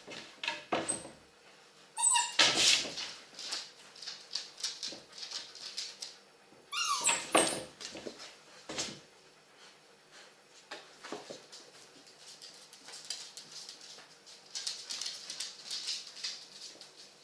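Dogs moving and playing on a hard floor: two short high-pitched whimpers, about two seconds in and about seven seconds in, the second falling in pitch, among scattered clicks and scuffling.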